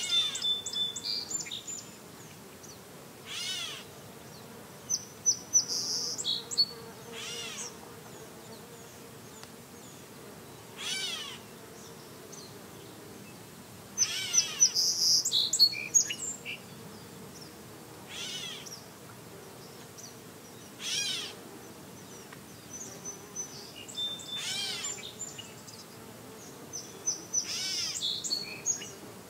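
Gray catbird giving its cat-like mew call about seven times, every three to four seconds, with bursts of high, quick chirps and trills from songbirds in between.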